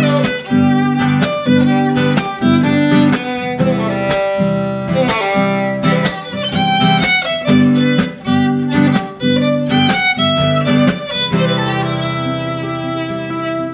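Nylon-string classical guitar strumming a steady rhythm under a bowed violin melody, an instrumental duet. Near the end the guitar strokes thin out and the violin holds longer notes.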